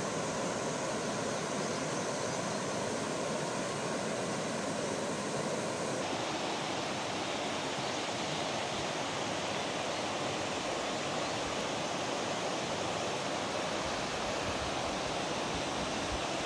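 Shallow, rocky river rushing steadily over stones, a constant watery hiss; its tone shifts a little about six seconds in, and a few low rumbles come in near the end.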